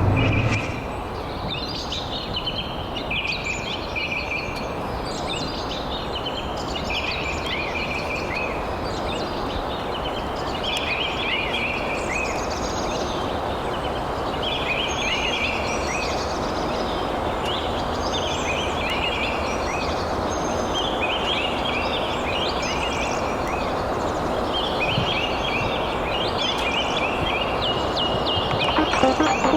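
Birds calling: clusters of short, quick, high chirps repeating every second or so, over a steady rushing background noise.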